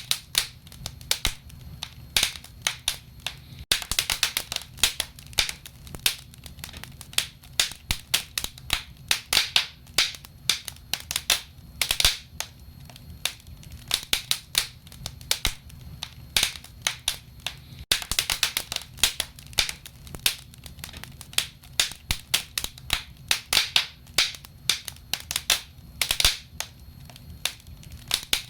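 Wood fire burning in a fireplace, crackling with frequent, irregular sharp pops over a low, steady rumble.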